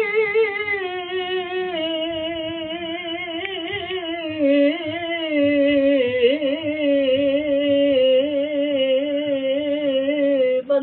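A man singing Punjabi dohre mahiye unaccompanied, holding one long drawn-out note with a wavering pitch that steps down about a second in and again around the middle.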